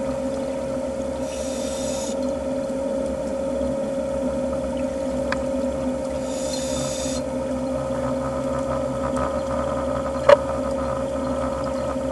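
Underwater sound through a camera housing: a steady hum, with a scuba regulator hissing for about a second on two breaths some five seconds apart. A sharp click sounds near the end.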